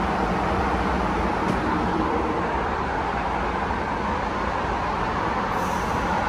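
MBTA Red Line subway train at the platform, giving a steady rumble and hum from its running gear and equipment.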